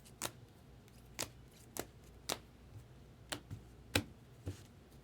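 Trading cards being handled and set down one after another on a table: a run of sharp clicks and taps, about two a second, with short gaps.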